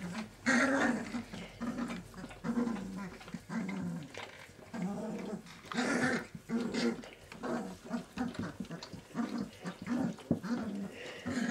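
A litter of 19-day-old Great Dane puppies growling and squeaking at play: a string of short, high little calls, one after another.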